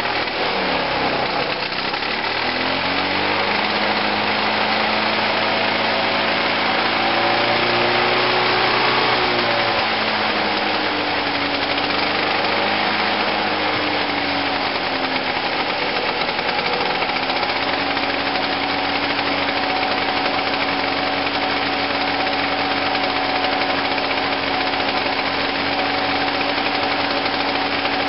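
Victa rotary lawn mower's two-stroke engine running from a cold start: its speed rises and falls unevenly for the first fifteen seconds or so, then settles to a steady run.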